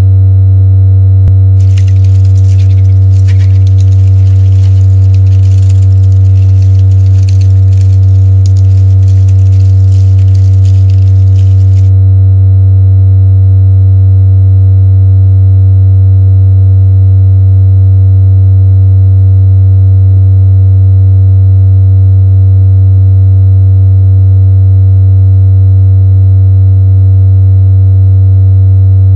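A loud, steady, low electronic drone tone with fainter overtones above it, unchanging throughout. A layer of hiss sits over it from about two seconds in until about twelve seconds in.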